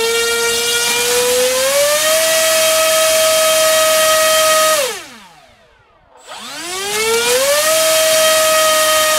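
NTM PropDrive 3536 1800kv brushless outrunner motor spinning a 7x6 electric propeller in two throttle bursts, a strong whine with many overtones. Already running, it steps up in pitch about two seconds in, holds steady, then winds down about five seconds in. A second burst winds back up a second later and holds a steady high pitch near the end.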